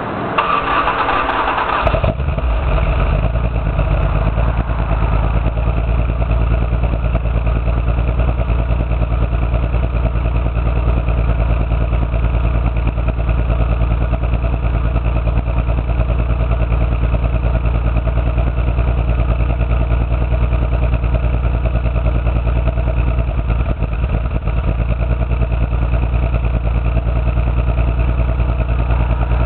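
Toyota 7M-GE inline-six engine with a Magnaflow exhaust: after a short noisy burst in the first two seconds it settles into a steady idle. It is misfiring, which the owner traced to no spark in cylinder 6 and then to a blown head gasket.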